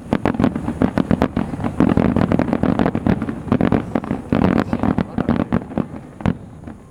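Starmine fireworks barrage: aerial shells bursting in a rapid run of loud bangs, several a second, thinning out near the end with one last bang.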